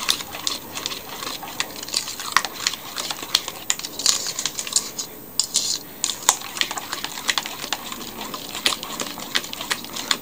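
A metal utensil stirring a wet, creamy batter in a stainless steel bowl, with rapid, irregular clicks and scrapes against the bowl's sides and a brief pause about halfway through.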